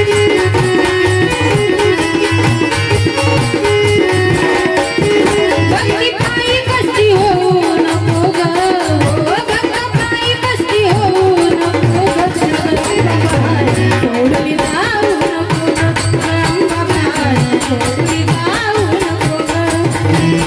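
A woman singing a Marathi devotional song, her voice gliding and wavering, over a steady drum beat.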